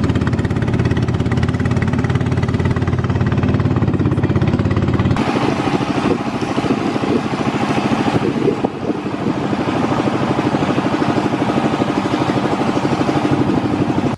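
A motor engine running loudly and steadily, its tone changing about five seconds in.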